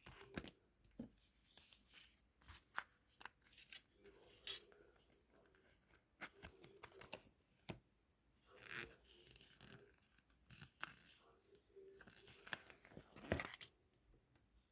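Faint handling noises: a string of small clicks and short rustling, tearing-like scrapes, with the loudest crackle about thirteen seconds in.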